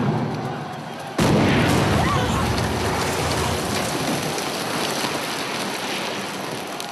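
Film-set pyrotechnic explosion: a sharp bang at the start, then a much bigger blast about a second in, whose noise fades away slowly over the next several seconds.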